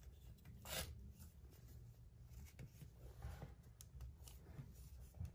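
Near silence with faint handling sounds of a hand working a metal faucet lever handle, with one soft rub or click a little under a second in.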